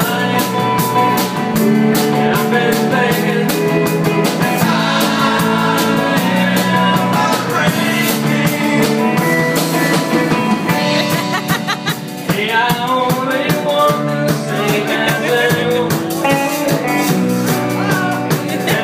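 Live rock band playing a song, with electric guitar, keyboard, bass guitar and drum kit together at a steady beat.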